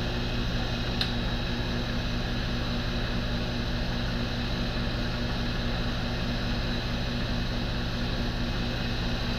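RF-31 mill/drill spindle motor running steadily with an end mill turning, a steady hum. One sharp click about a second in.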